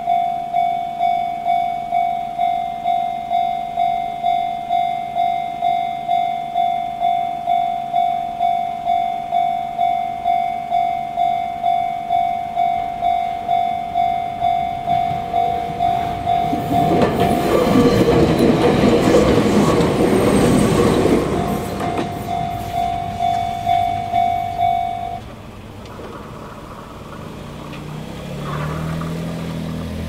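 Japanese level crossing's electronic warning bell in the Chichibu-type tone, ringing about twice a second. Between about 17 and 21 seconds in, a Jōmō Electric Railway train passes loudly over the crossing with wheel clatter. The bell cuts off about 25 seconds in, and near the end a car engine is heard as traffic starts across.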